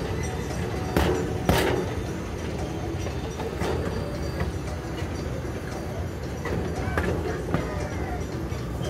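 Miniature park train running on its track: a steady rumble, with two sharp clacks about a second in.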